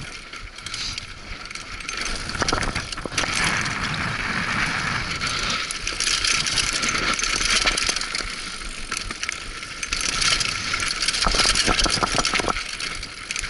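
Mountain bike riding fast downhill on a loose dirt and rock trail: continuous tyre and air rush with the bike rattling and clattering over the bumps.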